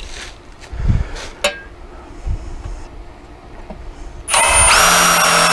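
A few handling knocks and a sharp click, then about four seconds in a cordless drill fitted with a nut-driver bit starts up and runs at a steady pitch, driving a self-tapping screw through a gate hinge into the hinge post.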